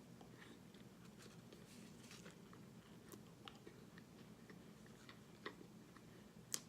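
Faint chewing and crunching of microwaved laundry starch chunks, with two sharper clicks near the end.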